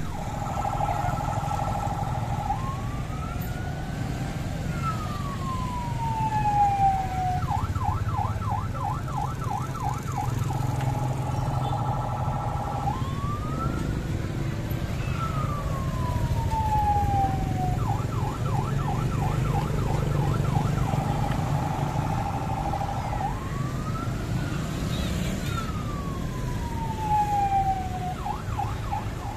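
Electronic vehicle siren cycling through its modes three times: a two-tone hi-lo, then a slow rising and falling wail, then a fast yelp of about five pulses a second, over a steady low rumble.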